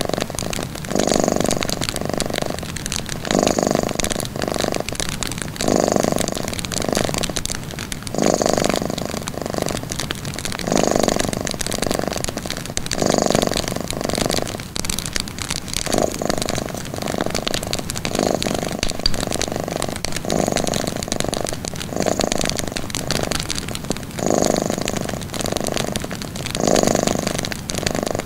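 Cat purring in a slow steady rhythm, a pair of pulses with each breath in and out, roughly every two and a half seconds. Small fire crackles underneath.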